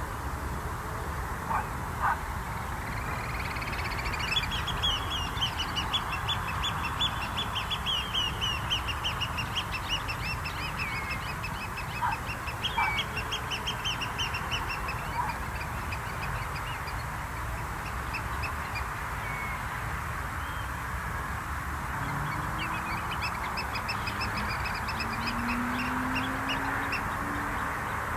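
Shorebirds calling in long, rapid trills of short high piping notes, pausing about two-thirds of the way through and then starting again, over a steady hiss and low rumble.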